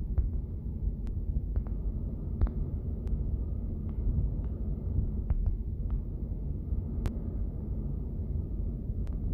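A steady low rumble, with faint scattered clicks.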